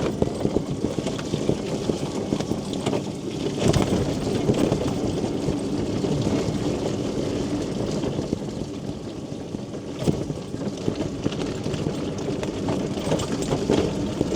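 Quingo Toura Mk2 mobility scooter travelling over a wet pavement in the rain: a steady rumble of motor and tyres, dotted with many small ticks and a few louder knocks.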